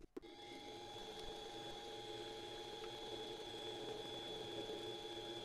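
Benchtop mini metal lathe switched on with a click just after the start, its spindle then running at about 2,500 rpm with a steady whine of several even tones.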